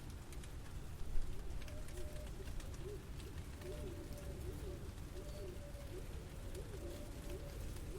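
A pigeon cooing in a run of repeated rising-and-falling notes, over a steady low city rumble. A brief sharp knock about a second in is the loudest moment.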